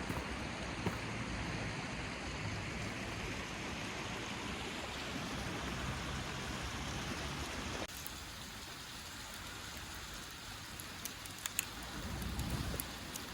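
Wood fire burning in a small camp stove: a steady hiss, with a few sharp crackles near the end. The hiss drops abruptly to a quieter level about eight seconds in.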